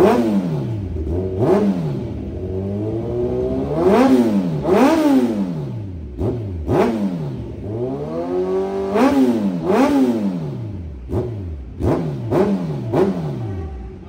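Kawasaki Z1000R's inline-four engine revved again and again through an aftermarket slip-on exhaust: quick throttle blips that rise and fall in pitch, with longer doubled revs about four and nine seconds in, dropping back to idle between them.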